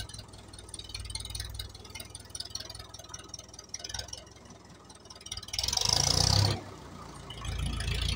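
Old tractor diesel engine running just after starting, with a low steady chugging idle. It swells briefly louder about six seconds in.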